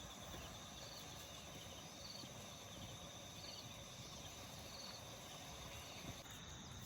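Faint riverside ambience: insects trilling on steady high notes over a low, even hiss, with short chirps repeating about once a second.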